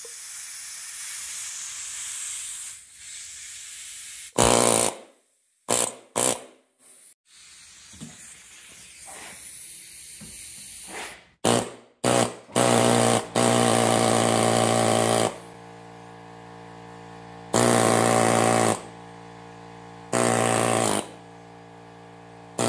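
Pneumatic air chisel hammering in about four bursts of one to two seconds, a rapid buzzing rattle, as it knocks the copper windings out of an electric fan motor. A steady hiss fills the first few seconds, and short clipped sounds come before the bursts.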